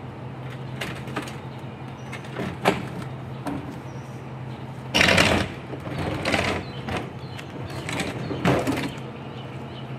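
A big, heavy television being manhandled into a pickup truck: scattered knocks and scrapes, with the loudest scrape and bang about five seconds in and another near the end. A steady low hum runs underneath.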